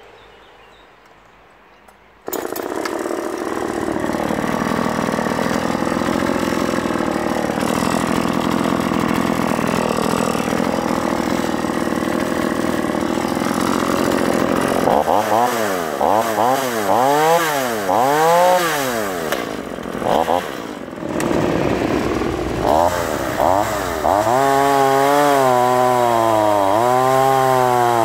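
Oleo-Mac GS 350 two-stroke chainsaw catches suddenly a couple of seconds in and runs at a fast idle. About halfway through it is revved up and down repeatedly, roughly once a second. In the last few seconds it is held at high revs as the chain cuts into a log round.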